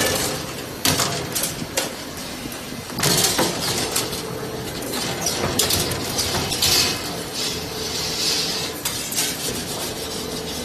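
Automatic 2D wire bending and butt welding machine running, with repeated sharp metallic clicks and clanks, several short bursts of hiss and a faint steady hum underneath.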